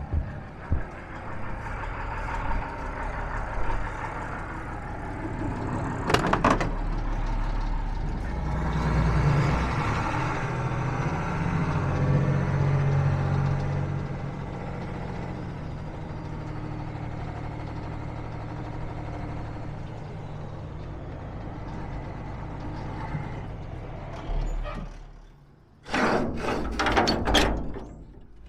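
Truck engine running as the truck is driven, swelling louder for several seconds in the middle, with a short sharp burst about six seconds in. The engine sound drops away near the end, followed by a quick series of knocks and clanks.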